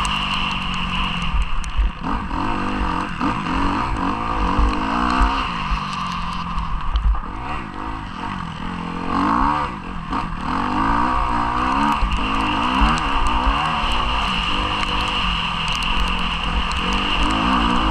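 Motocross bike engine revving up and down as it is ridden round a muddy track, with the revs rising and falling through gear changes and corners. The revs drop off briefly near the middle, then pick up again.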